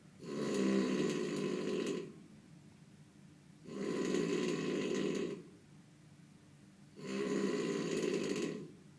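Loud snoring: three long, rasping snores at a slow, regular pace, about one every three and a half seconds, with quiet breathing gaps between.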